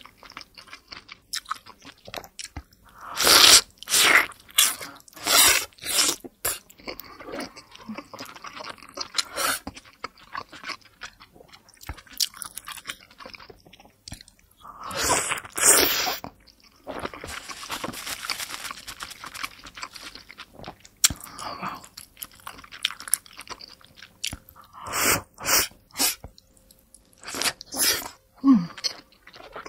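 A person biting into and chewing a large steamed pork momo dumpling close to the microphone: a long run of irregular mouth sounds in loud clusters, with quieter gaps between.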